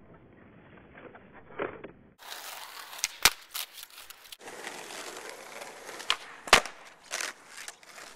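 Skateboard wheels rolling on asphalt, broken by sharp clacks of the board against the road, the loudest about three seconds in and again about six and a half seconds in. These are typical of a skateboard popping and landing an inward heelflip.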